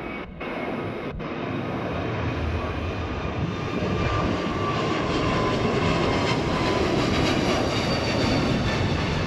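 Airbus A321's twin jet engines at takeoff power as the airliner climbs out overhead. A dense, steady engine noise grows louder and stays loud over the last few seconds, with a high whine that falls slightly in pitch as it passes over.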